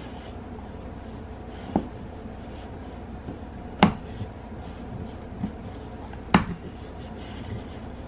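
A pit bull chewing on a plush stuffed toy: a few short, sharp clicks over a steady low background hum.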